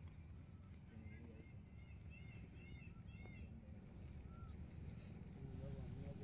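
Faint open-air ambience: small birds chirping several times about one to three and a half seconds in, over a steady high hiss and a low rumble.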